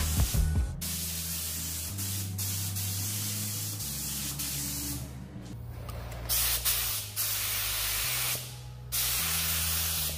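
Gravity-feed paint spray gun, run at about 30 PSI, spraying black base coat: a steady hiss of air and atomised paint, broken by several brief pauses as the trigger is let off between passes.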